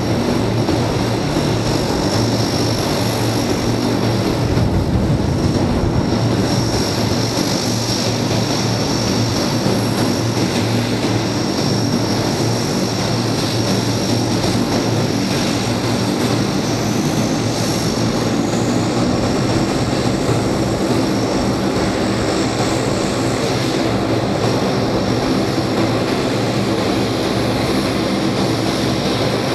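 Turboprop engines of a NASA Super Guppy cargo plane running steadily as it comes in low to land: a propeller drone with a high turbine whine above it.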